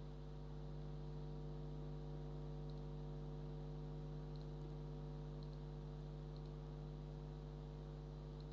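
Steady electrical mains hum, with a few faint computer mouse clicks as dialog tabs are selected.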